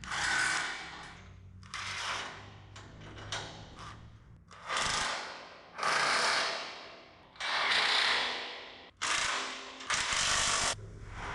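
A handheld power tool run in a series of short bursts, about seven, each starting sharply and lasting roughly a second.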